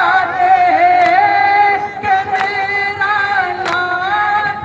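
Nauha, a Shia lament, sung in long held notes by a male voice over loudspeakers. The crowd's hand strikes on their chests (matam) land together three times, about every 1.3 seconds, in time with the lament.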